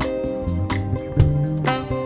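Live band music in an upbeat worship groove: electric guitar over bass and a steady drum beat.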